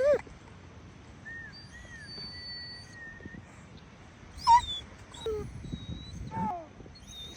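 German Shepherd dog whining and yelping in short cries, several falling in pitch, the loudest about halfway through.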